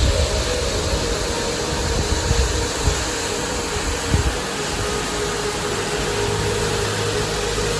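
Waterfall running with a steady, even roar of falling water, with faint sustained music tones underneath.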